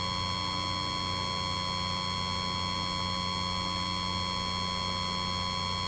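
Steady electrical hum with hiss and a few faint high steady tones, unchanging throughout; no other sound.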